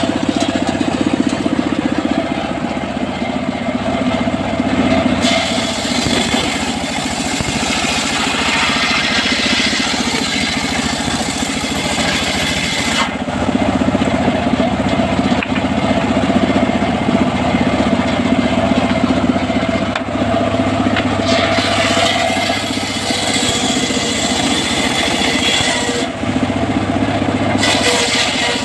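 Homemade table circular saw running with a steady drone, its blade cutting teak boards lengthwise. Two long cuts add a loud, hissing whine over the drone, the first from about five seconds in, the second past the twenty-second mark, with a short one near the end.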